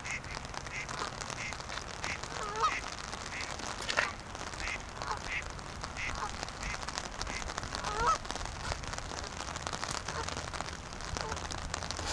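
Canada geese calling: a run of short calls about every half second, with a few louder honks standing out. Rain patters throughout.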